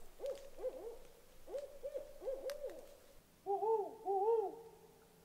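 Owls hooting: a string of short rising-and-falling hoots, then two longer, louder hoots about three and a half seconds in.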